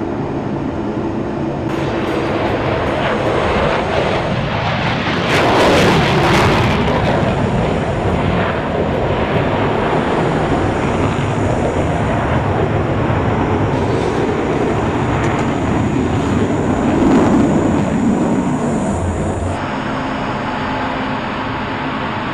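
F-16 fighter jet's engine and rushing airflow heard inside the cockpit during takeoff and climb-out: a loud, steady rush that swells about five seconds in and again near the end.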